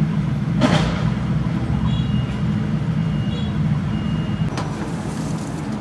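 Steady low rumble of a motor vehicle running nearby, with a few short high beeps around the middle and two brief hissing bursts, one just after the start and one near the end.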